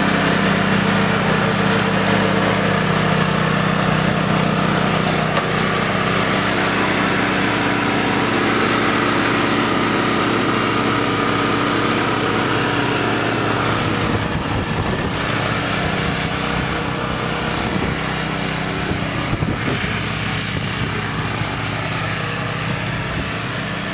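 Small gasoline engine of a snowblower running steadily, a continuous drone that shifts a little and grows slightly quieter about halfway through.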